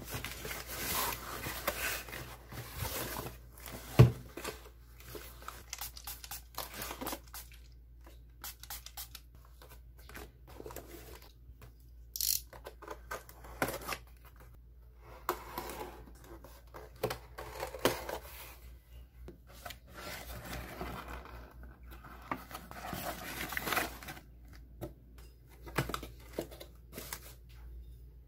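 Packaging being handled and opened: rustling of a non-woven bag, a utility knife slitting the packing tape on a cardboard box, and crinkling and tearing of packaging. A sharp knock about four seconds in is the loudest sound.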